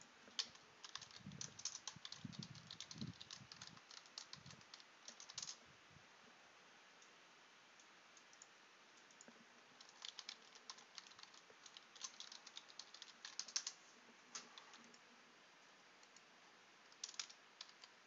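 Computer keyboard being typed on: two runs of quick keystrokes a few seconds each, separated by a pause, and a couple more keystrokes near the end, with a few low thumps in the first three seconds.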